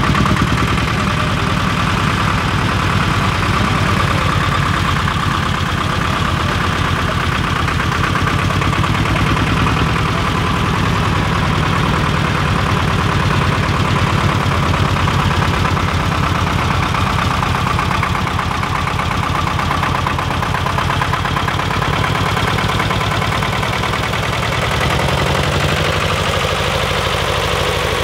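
Tractor engine running steadily at low speed, its firing pulses even throughout; the engine note shifts slightly about 25 seconds in.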